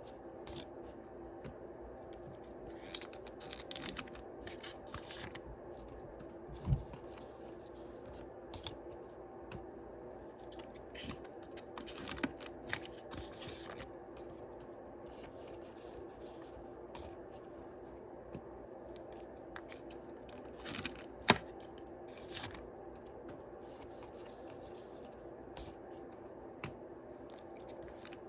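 Yu-Gi-Oh booster pack wrappers being cut and torn open and the cards handled: scattered rustling, crinkling and light clicks, with a couple of sharper knocks about seven and twenty-one seconds in.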